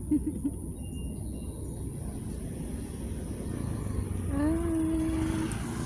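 Steady low rumble of distant traffic. Over it come three quick, short low calls right at the start and one longer low call near the end that rises, then holds steady for about a second.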